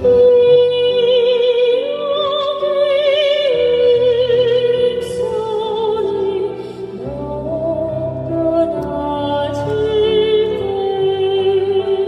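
A woman singing a slow Korean children's song in a soprano style, holding long notes with wide vibrato, over sustained chords from a digital keyboard.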